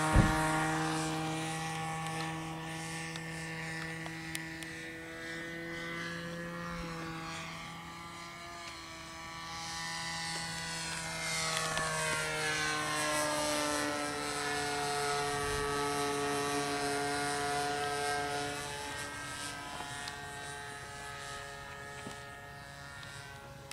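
RC model airplane engine and propeller droning steadily as the plane climbs out and circles overhead; the pitch bends down and back up as it passes about halfway through, and the sound fades near the end.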